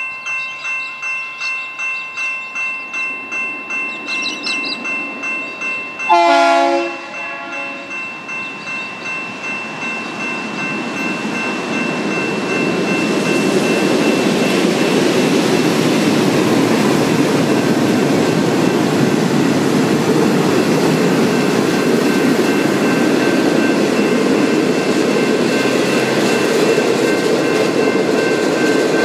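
Level-crossing electronic bell (a General Signals Type 2) ringing steadily at about two strokes a second while the lights flash for an approaching train. A short train horn blast about six seconds in is the loudest sound, then the rumble of the passenger train builds from about ten seconds and carries on as the carriages pass over the crossing, with the bell still ringing underneath.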